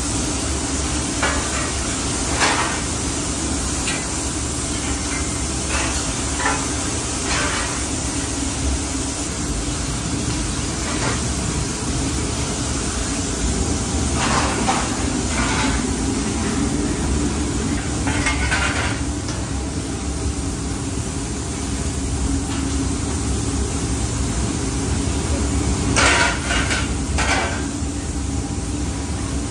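Factory machinery running with a steady hum, broken by a few short metallic clatters and hisses from work on the parts, the loudest near the end.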